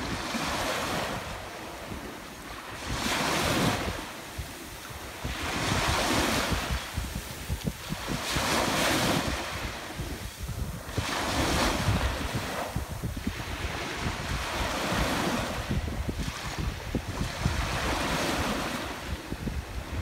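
Small ocean waves washing up over sand and draining back, the foamy swash hissing in swells that rise and fade every few seconds. Wind buffets the microphone with a low rumble underneath.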